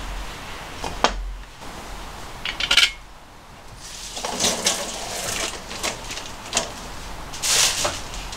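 Dishes and utensils being handled on a kitchen counter: a sharp clink about a second in and a cluster of clinks near three seconds, then a longer spell of rustling with light knocks.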